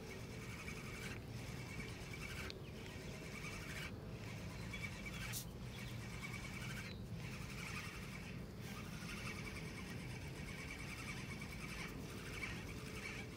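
Quiet outdoor ambience: faint birds chirping over a steady low rumble, with one brief click about five seconds in.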